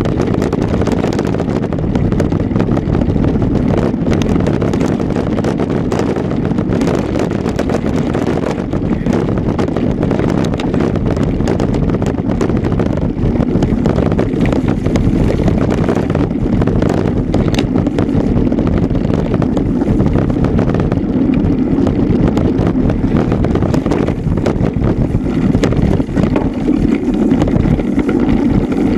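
A mountain bike ridden fast over a rough dirt trail, heard from a camera mounted on the bike: steady wind rush on the microphone with constant rattling and knocking from the bike and mount over the bumps.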